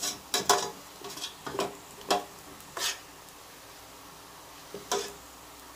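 Metal spoon scraping and clinking against a stainless steel cooking pot while cooked rice is scooped out: a string of short scrapes and knocks, most in the first three seconds and one more near the end.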